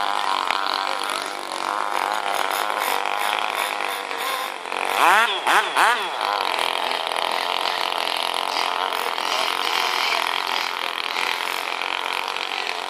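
Small combustion engine of a radio-controlled model speedboat running at high revs on the water, a steady high-pitched buzz. About five seconds in its pitch quickly rises and falls a few times.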